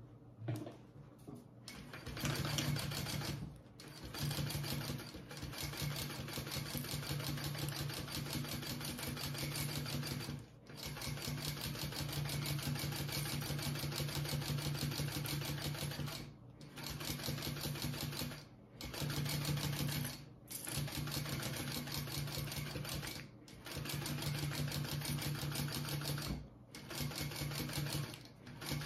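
Kingmax GC0302 industrial walking-foot sewing machine stitching piping onto a vinyl bag flap: a steady motor hum with rapid needle strokes. It sews in runs of a few seconds, stopping short and starting again about eight times as the edge is guided around the curve.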